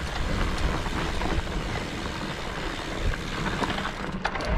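Electric mountain bike riding up a dirt trail: a steady rumble of wind on the microphone and tyres over dirt and rock, with scattered clicks and rattles from the bike.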